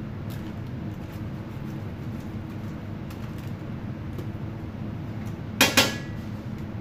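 Steady low background hum with a brief double clatter of kitchenware about two thirds of the way in.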